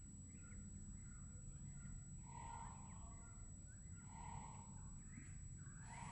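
Faint birds chirping: scattered short rising and falling chirps over a low background rumble.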